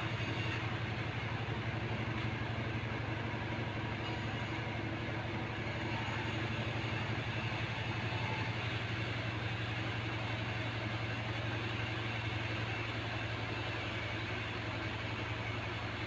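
Kitten purring steadily, a continuous low, rapidly pulsing sound with no breaks.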